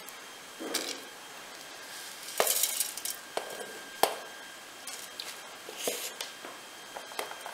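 Whole spices, green chillies and grated coconut being dropped into a stainless-steel mixer jar: a few short rattles and rustles, with sharp clinks and taps against the steel jar, the sharpest about four seconds in.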